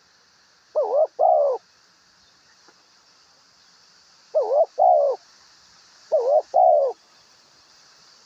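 A dove cooing: three short two-note phrases, each pair of coos lasting under a second, spaced a few seconds apart.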